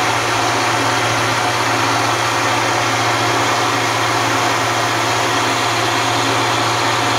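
Countertop blender motor running steadily at one speed, blending fruit, water and shake powder into a smoothie.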